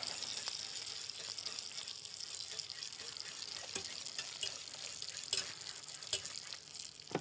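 Steady sizzling of a hot frying pan, with a few light clicks of a spoon stirring in a metal saucepan.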